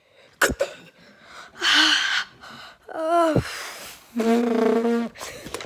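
A child's voice making playful sound effects: a sharp knock about half a second in, a breathy gasp-like sound, a short cry that slides steeply down in pitch, then a held 'aah'.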